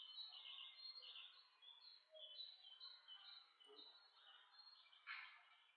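Faint bird song: a quick, steady run of short chirps alternating between two pitches, with a brief louder noise about five seconds in.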